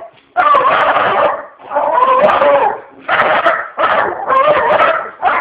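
Pet dog barking in a run of about five long, drawn-out, whining barks, each lasting up to a second with short breaks between.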